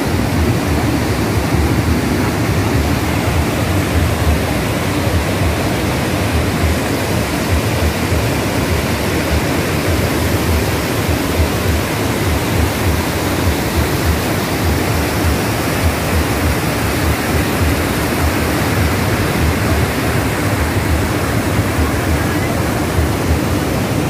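Steady rush of water from river rapids and a waterfall, an unbroken noise with an uneven low rumble underneath.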